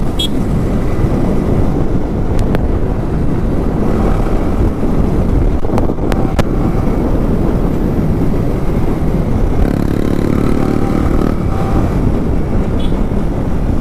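Yamaha R15 V2's single-cylinder four-stroke engine running steadily through an Akrapovic exhaust with its dB killer removed, with wind rushing over the microphone as the bike is ridden.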